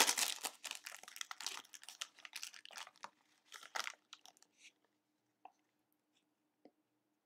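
Foil trading-card pack wrapper crinkling as the cards are pulled out of it: dense irregular rustling for the first few seconds, thinning to a few scattered small crinkles near the end.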